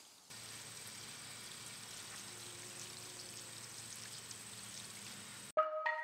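Steady hiss of running water spraying, as from a hose rinsing the bike. It cuts off abruptly about five and a half seconds in, and music with bell-like mallet notes begins.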